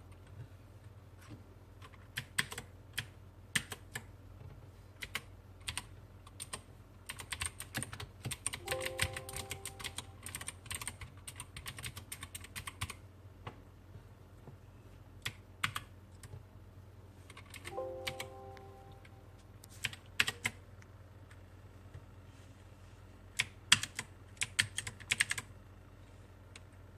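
Keys of an E-blue Mazer K727 mechanical keyboard clacking as they are pressed, in scattered single presses and quick runs of presses. A brief tone sounds twice, about a third and about two-thirds of the way in.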